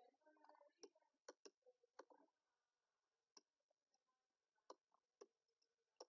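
Faint, sharp computer mouse clicks, about eight of them at irregular intervals, as letters are drawn on screen with the mouse.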